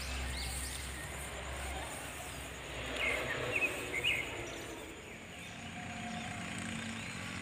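Outdoor rice-paddy ambience: a steady low rumble for the first two seconds, then a few short bird chirps about three and four seconds in.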